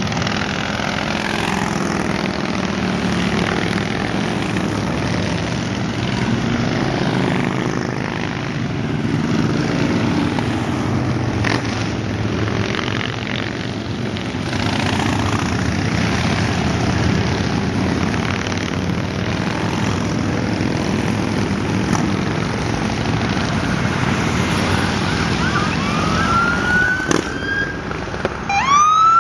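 A procession of cruiser motorcycles riding past at a steady speed, their engines blending into one continuous rumble. Near the end a police siren starts up, with short rising whoops.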